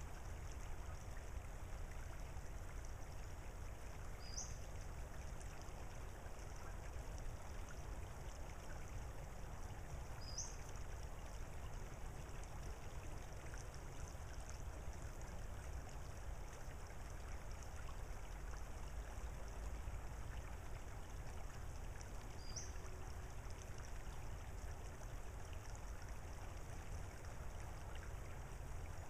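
Flowing water, a steady low wash from the shallow creek and shore. A bird gives a short, high, rising call three times.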